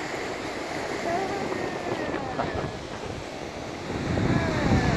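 Wind rushing over the microphone with waves washing on the shore, the wind buffeting growing stronger near the end.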